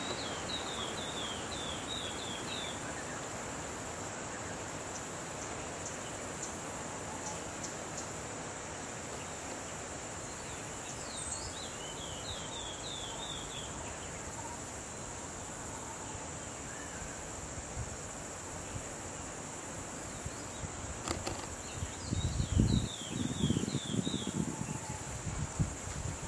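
Outdoor natural ambience: a steady high-pitched insect drone over a soft hiss. A bird calls three times, each a quick run of about eight falling notes, roughly ten seconds apart. In the last few seconds, bursts of low rumbling noise.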